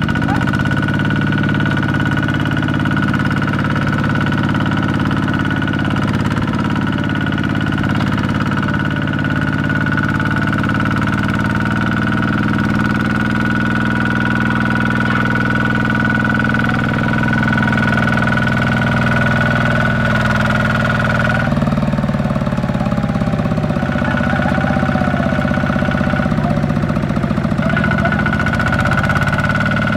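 Two-wheel walking tractor's single-cylinder diesel engine running steadily under load, hauling a loaded trailer through deep mud, with a steady high-pitched tone over it. About two-thirds through, the engine note shifts and the high tone drops out for a few seconds, then again briefly near the end.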